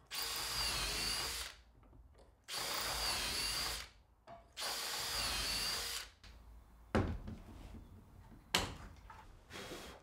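Makita cordless drill boring shelf-pin holes through a plastic drilling jig into plywood: three bursts of about a second and a half each, the motor's whine dipping as the bit bites into the wood. Two short knocks follow near the end.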